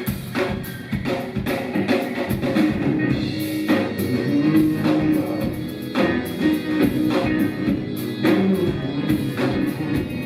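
Live rock band playing an instrumental passage with drum kit and guitar, the drums keeping a steady beat under sustained pitched notes.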